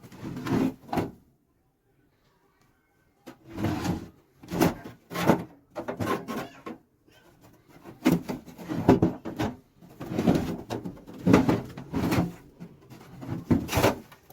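Rusty metal toolbox being handled: a dozen or so short scraping, clanking strokes, like drawers or a lid sliding open and shut on rusted metal, with a pause of about two seconds near the start.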